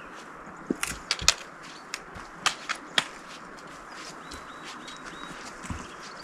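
A hiker's boots and trekking poles clicking and knocking on a rocky trail while walking, in irregular sharp clicks that are loudest about a second in and around three seconds, over a steady background hiss.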